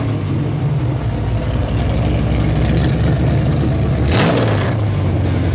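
A car engine running with a steady low rumble, with a brief louder burst about four seconds in.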